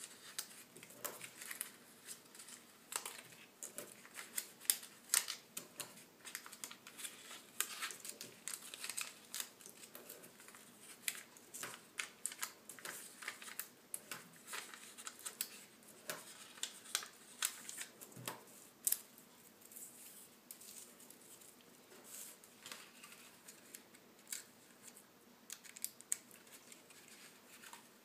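Paper being handled and worked: a fast, irregular run of sharp rustles, crinkles and clicks, busy at first and thinning out about two-thirds of the way through.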